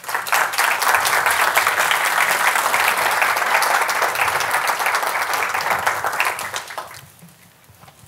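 Audience applauding, starting at once and dying away about six or seven seconds in.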